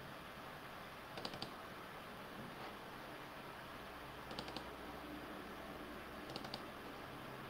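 Computer mouse clicking in three quick clusters, about one, four and a half and six and a half seconds in, over faint steady hiss.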